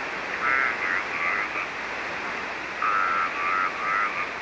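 Single-sideband shortwave receiver audio on the 40-metre band: a steady hiss that cuts off above about 3 kHz. Twice it is broken by garbled, warbling tones, the sound of an off-frequency sideband voice or other interference.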